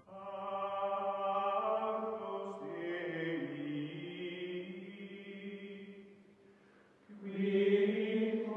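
Choral music of voices holding long, sustained chords. It fades out about six seconds in, then swells again near the end.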